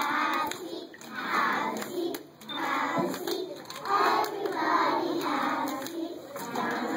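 A group of preschool children singing a song together in short phrases, with scattered hand claps.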